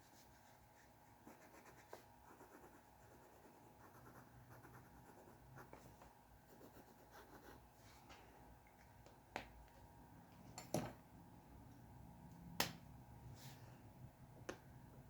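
Faint scratching of a drawing tool moving over paper in short, irregular strokes, broken by a few sharp taps or clicks, the loudest about two thirds of the way through.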